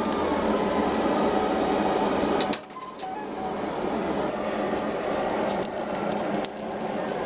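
Forge fire burning with a steady rushing noise, while iron rods are worked in the coals, giving two sharp metallic clicks.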